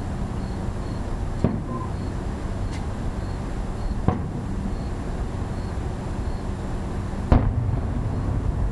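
Aerial firework shells bursting in the sky: three sharp booms about one and a half, four and seven and a half seconds in, the last the loudest, over a steady low background rumble.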